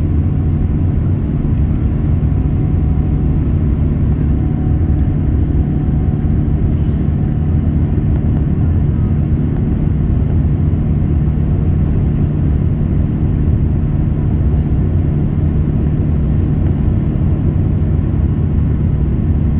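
Steady low drone of a Boeing 787's Rolls-Royce Trent 1000 turbofan engines at climb power, heard inside the passenger cabin, with a few steady low hums in the drone.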